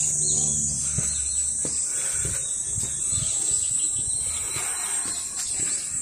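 Steady high-pitched drone of insects, with footsteps on a paved path landing about twice a second.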